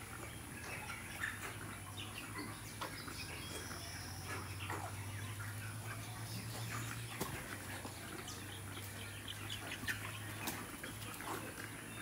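Large flock of broiler chickens calling: scattered peeps and short clucks from many birds at once, over a low steady hum.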